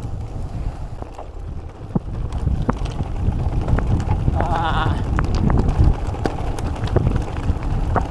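Argon 18 Dark Matter gravel bike descending a rough gravel road on 45 mm tyres: a steady rumble of tyres on gravel, wind rushing over the microphone, and many sharp rattles and knocks from stones and the bike. About halfway through, a brief wavering squeal rises over the rumble.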